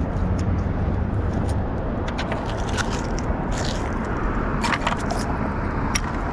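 Small metal clicks and scrapes as rusty nails and scrap are pulled off a magnet-fishing magnet by a gloved hand, several sharper clicks in the second half, over a steady low rumble of road traffic.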